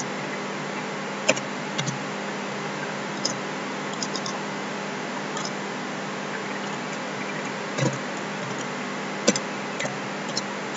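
Scattered computer keyboard keystrokes and mouse clicks, one or two at a time at uneven gaps, over a steady background hiss and low hum.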